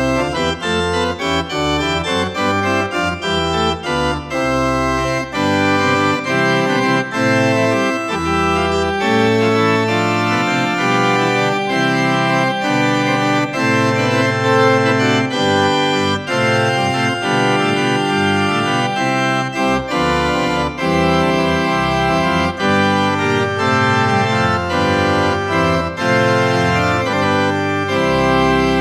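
Organ music: a slow piece in full, held chords over a moving bass line.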